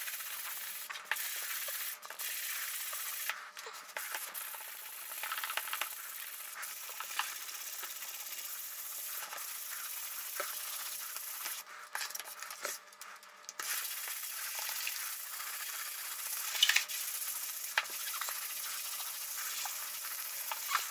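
Hand sanding a sheet of wooden kit parts with 220-grit sandpaper wrapped around a sanding block: a steady scratchy hiss of back-and-forth strokes, broken by a couple of short pauses and a light knock about two-thirds of the way through.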